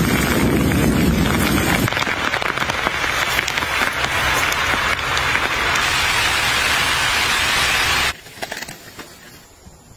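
Steady rain falling on a tarp shelter and grass, cutting off suddenly about eight seconds in.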